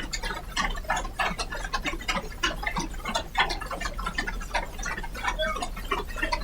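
Applause from many people: a dense, irregular run of claps that keeps up steadily.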